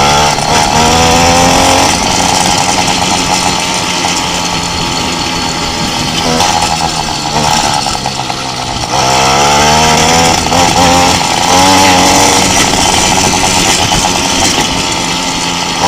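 Motorcycle engine running hard while riding, its pitch rising twice as it accelerates: once near the start and again about nine seconds in, with steadier running between.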